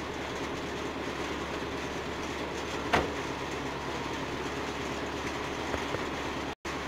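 Heavy rain pouring steadily, with one sharp click about three seconds in. The sound cuts out for a moment near the end.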